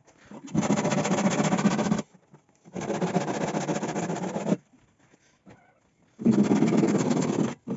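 Handsaw cutting across a wooden door frame's rail in fast back-and-forth strokes. It comes in three spells of about one and a half to two seconds each, with short silences between them.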